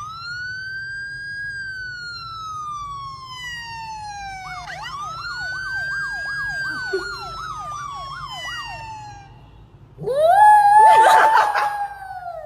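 An emergency-vehicle siren: one long wail that rises and then slowly falls, then a fast yelp that sweeps up and down several times a second. About ten seconds in, a louder rising, wavering tone starts and runs to the end.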